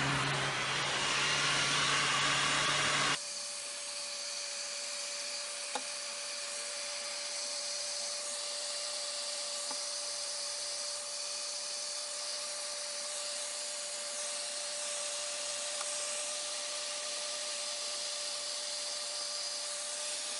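Heat gun blowing hot air onto PVC tubing, a steady rushing noise over a low motor hum. About three seconds in the sound changes abruptly to a quieter steady hiss with a thin high whine, as the footage is sped up, with a single click about six seconds in.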